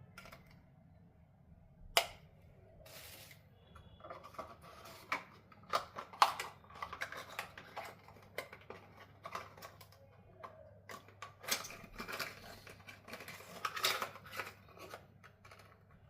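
A box and its packaging being opened and handled: a sharp click about two seconds in, then rustling and a run of irregular clicks and taps.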